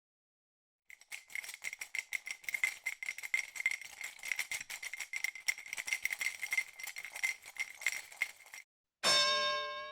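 Rapid, continuous rattling with a jingly metallic ring, small objects shaken or knocking together. It stops shortly before a bright chime rings out and fades near the end.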